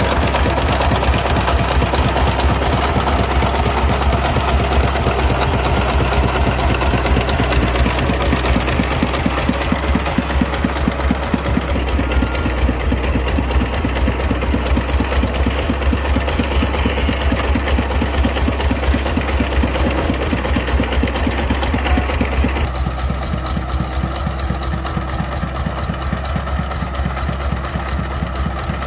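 Single-cylinder diesel engine of a công nông farm truck running steadily, with a fast, even beat of firing strokes. The higher part of the sound drops away about 23 seconds in while the engine beat carries on.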